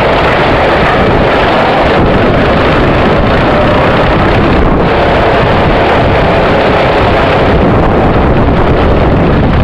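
Go-kart running at speed, heard from a camera mounted on the kart: a loud, steady rush of wind on the microphone mixed with the kart's engine.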